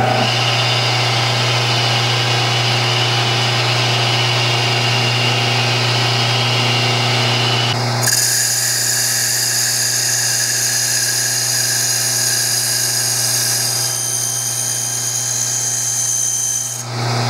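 Metal lathe running under power while a boring bar bores out the inside of a pipe bushing held in the chuck: a steady motor hum and whine with cutting noise. The tone of the cut shifts about halfway through.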